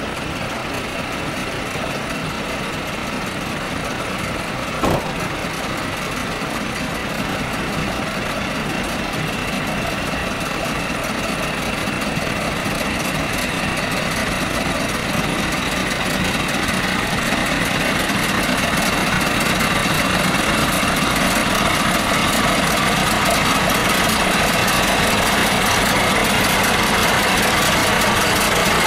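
Narrow-gauge diesel locomotive's engine running at low speed as it rolls closer, growing steadily louder until it passes close by near the end. A single sharp click about five seconds in.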